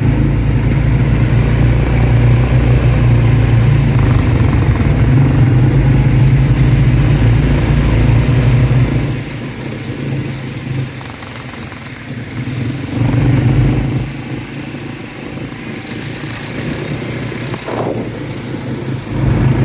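ATV engine running, loud and steady for about the first nine seconds, then quieter and rising and falling. A brief hiss comes about sixteen seconds in.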